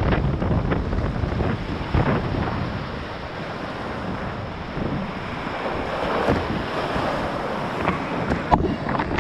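River rapids rushing and churning around a kayak, with wind buffeting the microphone and a few sharper paddle splashes.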